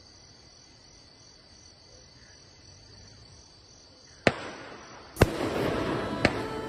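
Night insects trilling steadily with a high, evenly pulsing chirr. About four seconds in, a sharp firework bang, then a second, louder bang a second later followed by crackling, and a third crack near the end.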